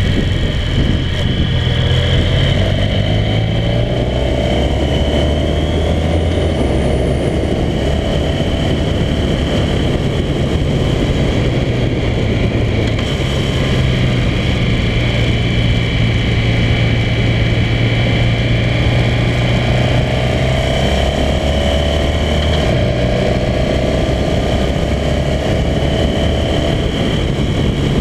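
Honda motorcycle engine running steadily on the move, its note stepping up and down a few times as the throttle and gears change, with wind and road noise over it.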